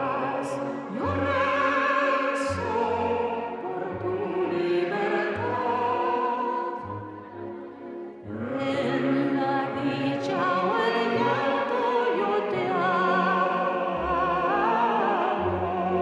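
Operatic singing with orchestral accompaniment: a sung voice with wide vibrato over sustained instruments, easing off briefly about seven seconds in before swelling again.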